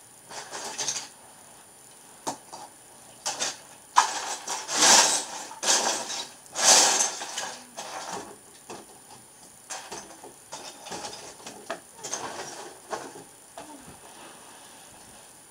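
Plastic Lego bricks clattering and clicking as pieces are picked through and snapped together, in irregular bursts that are loudest about four to seven seconds in.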